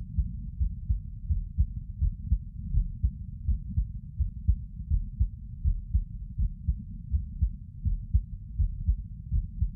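A person's heartbeat, recorded at rest while sitting: a steady, even rhythm of low, dull thumps, a little over one beat a second.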